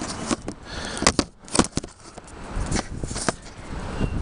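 Handling noise of a camera being set down and adjusted on a hard surface: a string of knocks, clicks and scrapes, the loudest a little after a second in.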